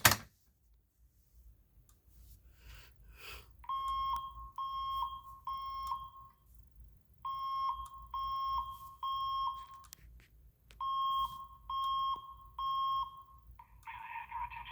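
Cooper Wheelock fire alarm voice evacuation speaker sounding the temporal-three alert tone: three short beeps near 1 kHz, a pause, then the group again, three times over. Near the end a harsher, buzzier sound from the speaker takes over.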